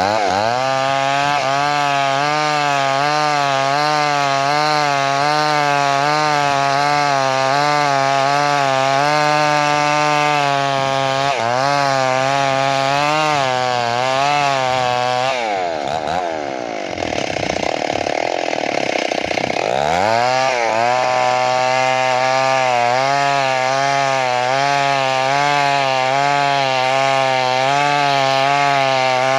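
Chainsaw cutting wood, its engine pitch wavering under load. About halfway it drops toward idle for a few seconds, then revs back up and carries on cutting.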